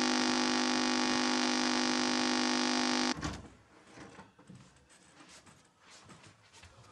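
An electric buzzer sounds in one loud, steady buzz and cuts off abruptly about three seconds in, followed by faint rustling and small knocks.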